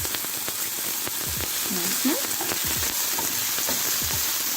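Chopped tomato, onion, bell pepper and garlic frying in hot oil in a pot: a steady sizzle, with a few light knocks of a utensil stirring them.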